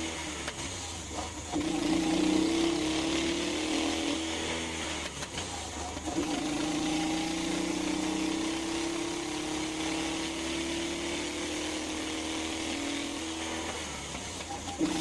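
Duromax 440XPE 18 hp single-cylinder engine driving a 1975 MGB through its manual gearbox on upshifts. The engine note breaks and drops briefly at each gear change: about a second in, around five seconds in and near the end. Between changes it climbs slowly as the car accelerates.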